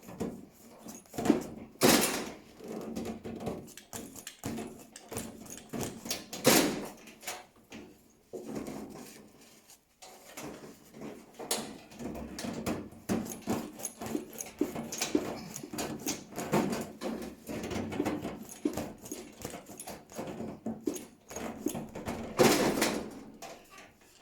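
Irregular rubbing, creaking and scraping as a rubber gas hose is worked onto a heater's pipe fitting, with a few sharp knocks.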